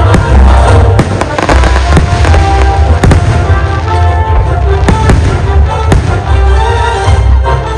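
Fireworks display: several sharp bangs of bursting shells over loud music with a heavy bass.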